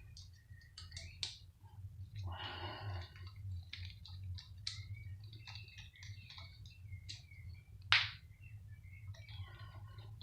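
Scattered light clicks and taps from the metal parts of a pump being handled and taken apart, over a low steady hum. There is a short scrape about two seconds in and a sharper single knock about eight seconds in.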